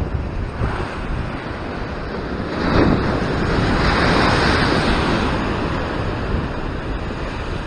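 Ocean surf breaking against a rock ledge: a wave crashes and throws up spray about three seconds in, the roar swelling for a couple of seconds before settling back to the steady wash of the sea. Wind buffets the microphone throughout.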